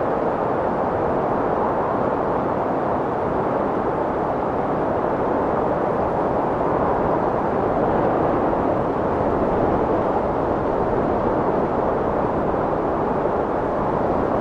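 Strong wind blowing: a steady, loud rushing roar that swells a little around the middle.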